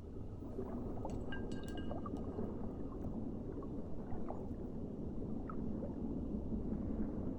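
Hands squishing and stirring a mass of water beads: a continuous wet squelching with scattered small pops and clicks.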